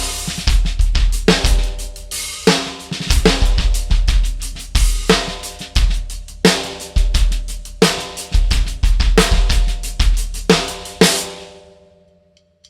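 Drum kit groove built around a Dixon 14x6.5 Classic Series maple snare drum with an Evans UV1 batter head, backed by bass drum, hi-hat and cymbals. The playing stops about eleven seconds in and the kit rings out.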